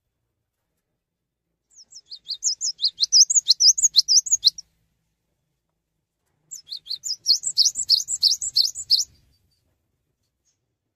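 Cinereous tit (gelatik batu) singing two fast trilled phrases of high, sharply sweeping notes at about six notes a second. The first phrase starts about two seconds in and builds in loudness; the second starts about six and a half seconds in.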